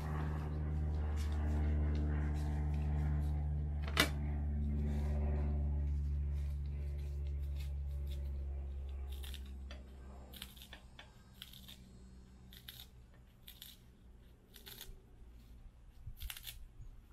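Scissors cutting fresh sugar-apple leaves into small pieces: a series of short, crisp snips, about one a second, from about halfway through. Before that, a steady low mechanical hum fades away, with a single sharp click about four seconds in.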